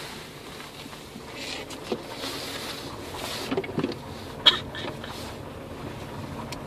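Car running and moving, heard from inside the cabin as a steady rushing noise, with a few small knocks and one sharp click about four and a half seconds in.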